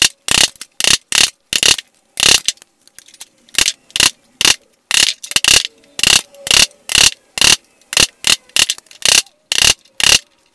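A hand hammer striking a chisel held on a steel helmet ocular plate, chasing decorative lines into the metal: sharp metallic taps about two to three a second, each with a brief high ring, and a short pause about three seconds in.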